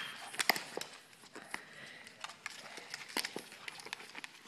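Irregular light clicks and scuffles of a Shih Tzu's claws scrabbling on a hardwood floor as the dog squirms and rolls.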